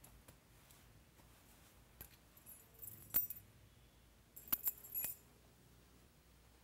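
Small metal objects jingling and clinking, in two short bursts: one about three seconds in and a longer one about four and a half seconds in, with a few faint clicks before them.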